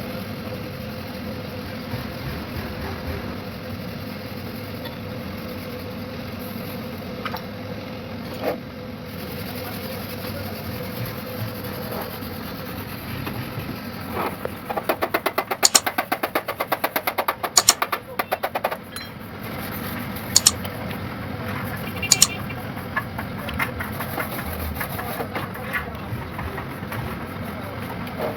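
Steady background rumble, with a rapid run of light taps, several a second, lasting about four seconds about halfway through, then two single sharp knocks a couple of seconds apart.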